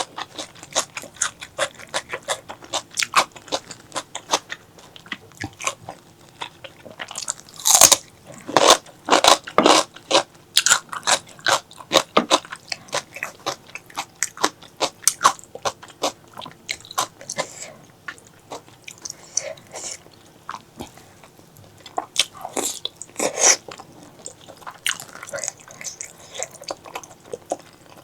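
Close-miked eating of spicy pork leg curry: a run of biting, crunching and chewing with wet clicks and smacks, loudest in two bursts, about a third of the way in and again near the end.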